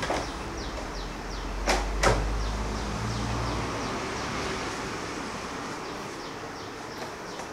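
Handling noise as a leatherette tank cover is pulled off a motorcycle's fuel tank, with two sharp knocks about two seconds in.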